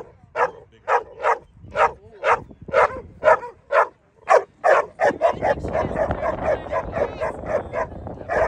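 A dog barking over and over in short, high, sharp yips, about two or three a second. From about halfway the barks come quicker, over a low rumble.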